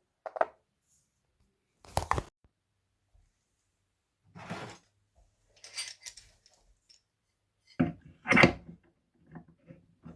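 Separate knocks and scrapes of hand work on a hammer during restoration: a sharp knock about two seconds in, a short scrape and a brief hiss in the middle, and two knocks near the end, the second the loudest.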